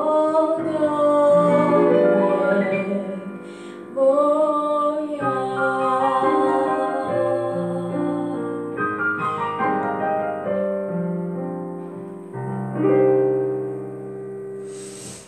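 A young woman sings the closing phrases of a ballad into a microphone, with vibrato on the held notes, over a digital piano accompaniment. The piano finishes alone on a chord that fades out near the end. The teacher judges that the fermata after the high note was cut short.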